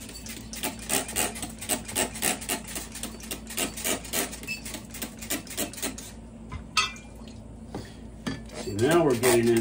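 Trigger spray bottle pumped rapidly, about three to four squirts a second, jetting water into a glass beaker and funnel. This stops after about six seconds. A single sharp click comes about seven seconds in, and a brief wavering pitched sound follows near the end.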